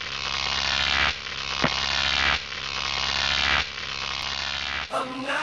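Electronic intro sound: a buzzing noise swell that builds and cuts off four times, about every 1.2 s, over a steady low hum. About five seconds in it gives way to music with pitched notes.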